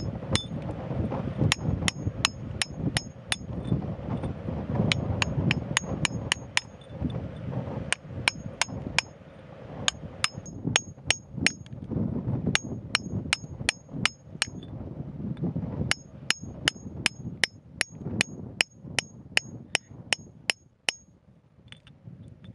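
A steel hammer striking a chisel driven into rock, sharp metallic blows with a short ringing ping. The blows come in runs of several, about three a second, with short pauses between runs.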